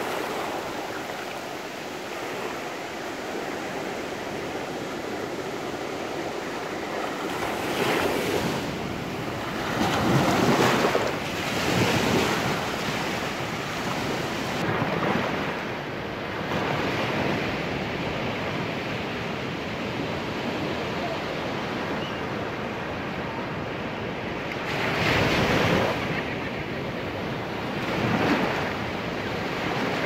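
Small waves breaking and washing up a sandy beach, the surf rising and falling with each wave. It is loudest about a third of the way in and again near the end.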